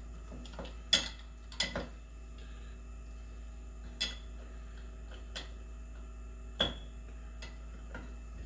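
Scattered sharp clicks and taps, about five of them, from small metal parts and tools being handled while a zone valve's shaft seal is worked on by hand, over a steady low hum.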